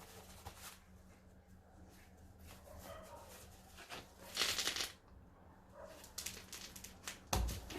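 Circlip pliers clicking and scraping on the large bearing retaining circlip in a front steering knuckle as it is being spread, with a louder rasping scrape about halfway and a sharp knock near the end.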